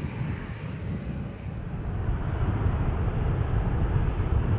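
Low, steady rumble of a departing Emirates Airbus A380's four jet engines, growing a little louder about two seconds in.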